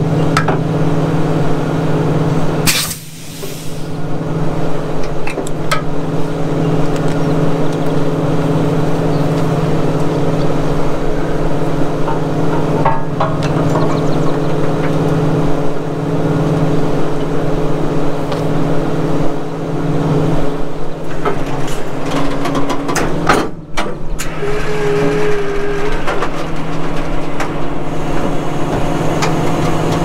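Semi truck's diesel engine idling steadily, with a few short knocks over it.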